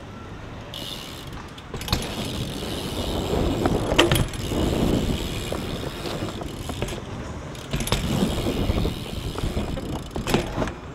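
BMX bike riding over concrete skatepark ramps. Tyre rolling noise swells and fades, with sharp knocks of the wheels hitting the concrete, the loudest about four seconds in and a few more near the end.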